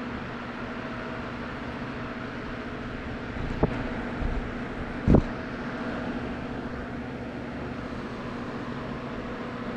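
Tuxedo cat purring steadily while being petted, close to the microphone. Two knocks as the cat bumps the camera, the second, about five seconds in, the loudest.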